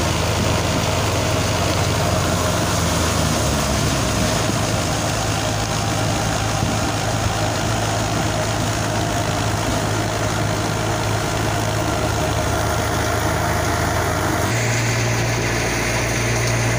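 Fiat 480 tractor's diesel engine running steadily while it drives a wheat thresher, with the thresher's dense whirring and rushing noise. The engine note shifts slightly about three and a half seconds in and again near the end as the load changes.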